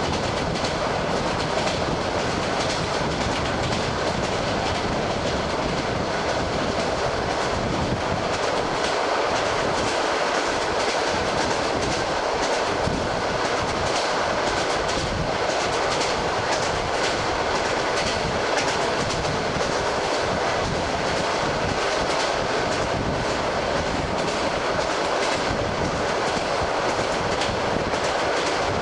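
ED9M electric multiple unit running at speed, heard from the train's window: a steady rushing run with the fast clickety-clack of its wheels.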